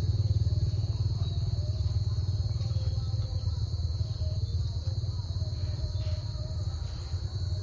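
Engine idling with a steady low rumble that slowly fades, under a continuous high chirring of crickets.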